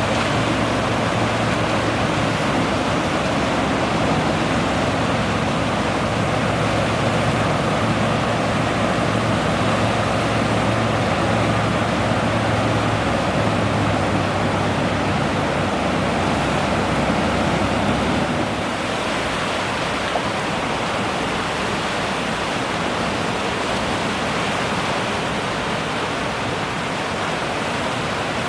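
Steady rushing outdoor noise with a low, even hum under it; the hum and some of the rushing stop abruptly about two-thirds of the way through.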